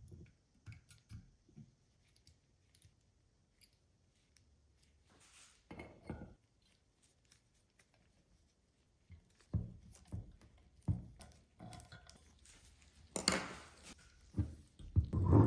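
Scattered clicks, knocks and brief scraping of small objects being handled, becoming busier in the second half with the loudest knocks near the end.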